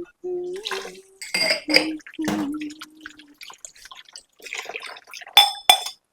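Dishes and glassware clinking and knocking, ending in two sharp ringing clinks about a second before the end.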